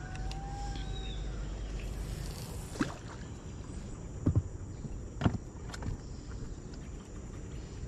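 A few sharp knocks and clicks from fishing rods and reels being handled in an inflatable boat, over a low steady rumble.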